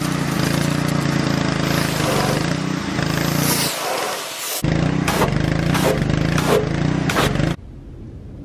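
Pressure washer running, its jet spraying the car's exhaust pipes and tips to rinse them off. A steady rush of spray over a motor hum, which drops out briefly a little before four seconds in, starts again, and cuts off suddenly about seven and a half seconds in.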